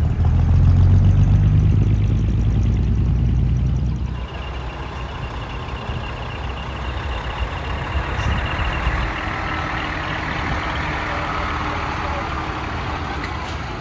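Heavy diesel truck engines running at low speed, loud and low for about the first four seconds. Then a Hino dump truck drives slowly past, with a lighter engine and road sound and a faint steady high tone.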